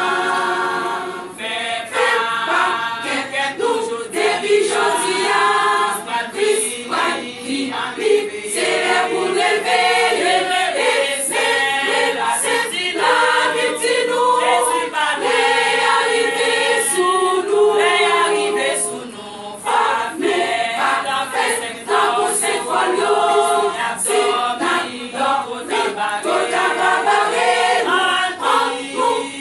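Women's church choir singing together, many voices at once, with a short break about nineteen seconds in.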